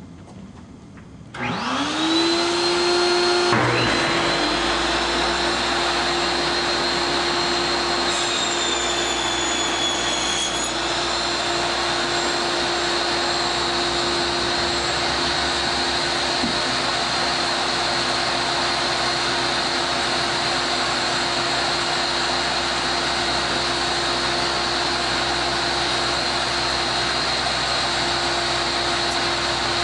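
An electric motor spins up with a rising whine about a second and a half in, spins up again about two seconds later, then runs steadily with a high whine. Its pitch sags for a couple of seconds about a third of the way through, then recovers.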